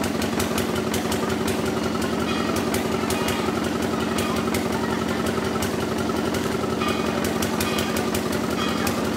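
An engine running steadily: an even hum with a fast, regular pulse.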